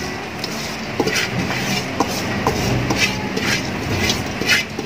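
Soaked basmati rice tipped and scraped by hand off a steel bowl into a pot of boiling water. Soft splashes and a few clinks sound over the steady hiss of the boil.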